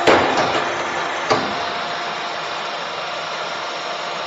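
30-ton CNC busbar machine shearing copper busbar: its hydraulic unit runs steadily, with a sharp clack right at the start and another about a second in as the die comes down.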